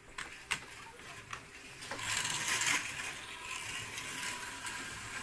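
Slot car running along the track: the small electric motor whirs and the car rattles in its slot. The noise swells about two seconds in, as the car passes close, and stays steady after that, with a few sharp clicks near the start.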